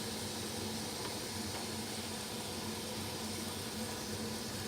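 Chicken breast pieces frying in olive oil in a non-stick skillet: a steady, even sizzle, with a low steady hum underneath.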